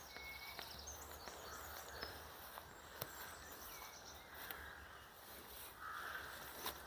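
Faint birdsong, with a few soft footsteps through long grass.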